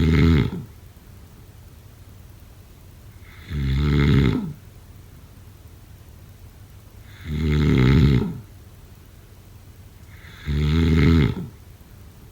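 A person snoring in a steady rhythm, one snore about every three and a half seconds, each lasting about a second.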